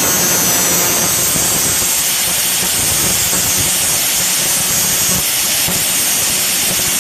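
Angle grinder running with a stainless steel knife blade held against its disc, grinding with a steady loud hiss over the motor's hum.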